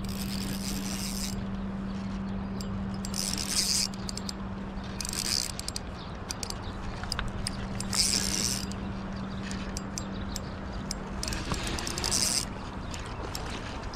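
Spinning reel's drag buzzing in five short bursts, each under a second, as a hooked steelhead takes line, over a steady low hum.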